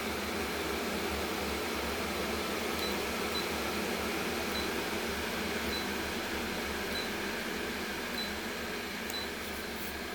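Tefal Thermovision KI410D30 electric kettle heating water, a steady rushing noise that eases slightly near the end.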